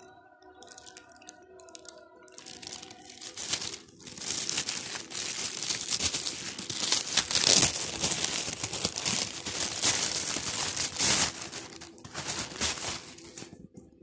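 Thin clear plastic packaging bag crinkling and crackling as hands work it open and pull the bag out. The crinkling is faint at first, turns loud and dense about four seconds in, and stops shortly before the end.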